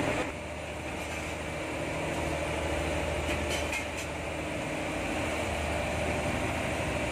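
Steady hum of a fishing boat's engine running, with a few faint clicks about three to four seconds in.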